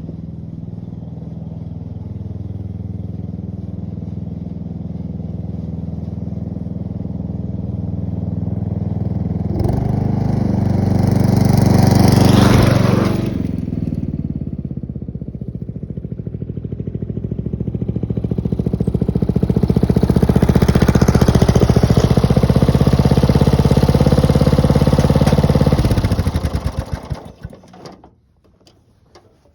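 Hot-rodded riding lawn mower engine running: it idles, climbs to a louder run about ten seconds in and eases back a few seconds later, then rises again and holds. Near the end it winds down and shuts off.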